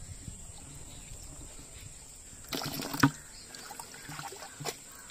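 Water splashing briefly in a plastic bucket about two and a half seconds in, ending in a sharp knock, then a fainter click near the end.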